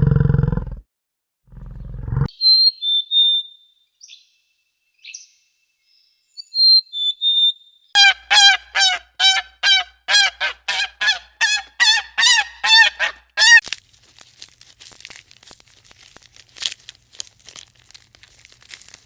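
A goose honking, a rapid run of about fifteen loud calls, about three a second, that starts after a few thin high whistled bird notes and trails off into fainter calls. A deep animal roar fades out in the first second.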